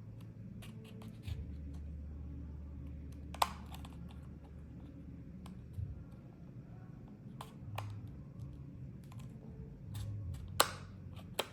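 Plastic clicking and scraping as a spudger pries at the snap-fit seam of an HTC Vive Tracker 3.0 housing, with a few sharp snaps, the loudest about three and a half seconds in and two near the end. A low steady hum runs underneath.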